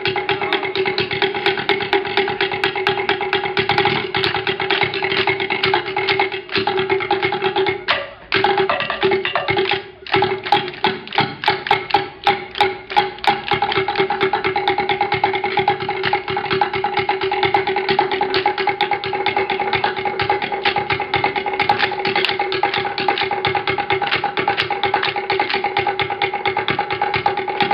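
Samoan sasa seated group dance: many performers clapping and slapping in fast unison to wooden drum beats, over a steady held tone. The rhythm breaks off briefly about eight seconds in and again about ten seconds in.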